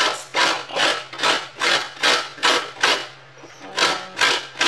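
Food being grated by hand on a flat metal grater: rhythmic rasping strokes, about two and a half a second, with a short pause about three seconds in.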